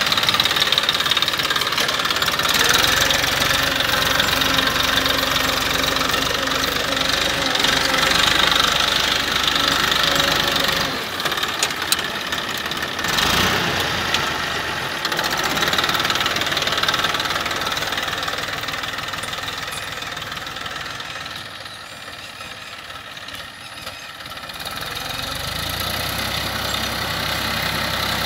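Massey Ferguson 1035 DI tractor's three-cylinder diesel engine running steadily under load while pulling a tined cultivator through dry soil. The engine sound fades for a few seconds past the middle, then comes back up.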